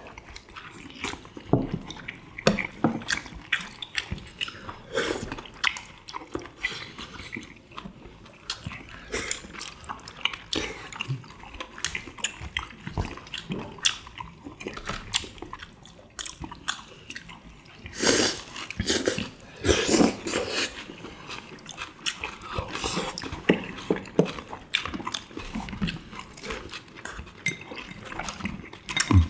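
Close-miked eating sounds: chewing, lip-smacking and slurping of tteokbokki and fried chicken, with chopsticks clicking against plates. Two louder mouthfuls stand out about 18 and 20 seconds in.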